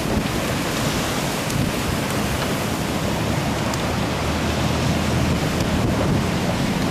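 Fast floodwater rushing under a bridge, a steady churning noise, with wind buffeting the microphone.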